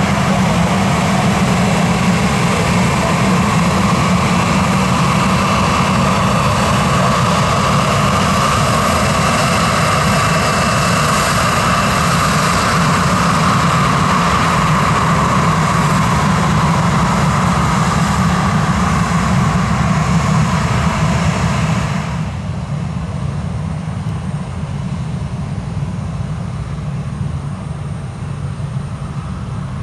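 Jet engines of a Boeing 737-800, CFM56-7B turbofans, running loud as the airliner departs: a steady roar. About two-thirds of the way through, the hissing upper part cuts off suddenly, leaving a lower rumble.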